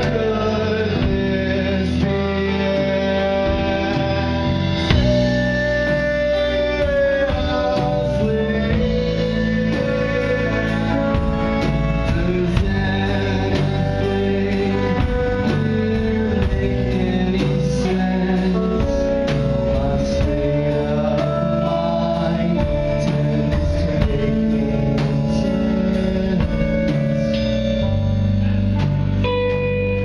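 Live band playing: electric guitars and a drum kit, with a man singing.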